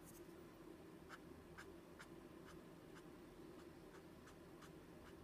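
Faint, light scratchy strokes of a paper blending stump rubbing solvent-softened colored pencil into cardstock, about two strokes a second.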